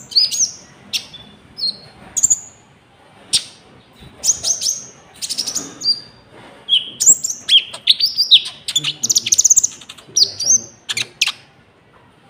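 Konin songbird singing a fast, varied song of sharp chirps and short falling whistles, in loud bursts with short pauses.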